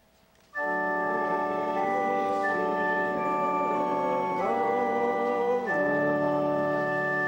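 Church organ playing a short run of held chords. It comes in about half a second in and changes chord four times.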